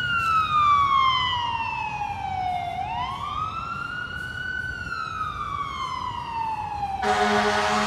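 Ambulance electronic siren in wail mode. The pitch slides slowly down, climbs back up and slides down again. Near the end a deep, steady horn blast sounds over it.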